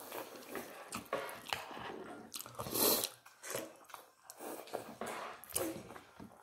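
Biting and chewing sauced chicken wing meat off the bone, with irregular wet mouth clicks and smacks.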